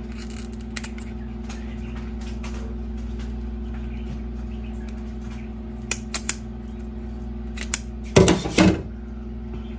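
Kitchen scissors snipping through a plucked quail's skin in small, crisp clicks over a steady hum. Near the end comes a brief, louder cluster of knocks.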